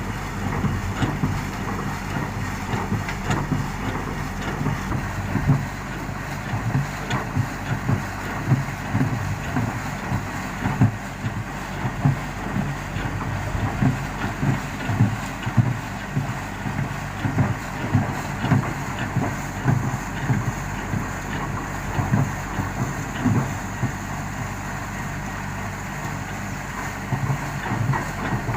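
Heavy diesel construction machinery running steadily at a bored pile pour, with frequent irregular clanks and knocks over the engine hum.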